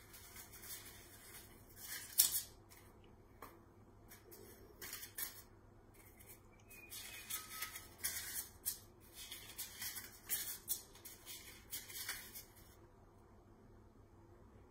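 Paper cupcake cases rustling and crinkling in short, irregular bursts as they are pulled apart and handled, stopping near the end.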